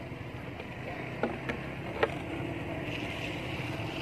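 Steady low outdoor rumble, with three sharp plastic crackles between about one and two seconds in, the last the loudest, as macaques handle a plastic water bottle and bag.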